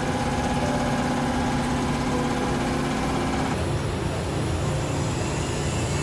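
Workshop machinery running with a steady hum and hiss, its tone shifting about halfway through.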